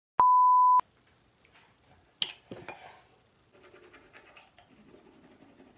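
A loud steady beep lasting about half a second at the start. About two seconds in there is a sharp click, then the faint scratchy scrubbing of a toothbrush brushing teeth.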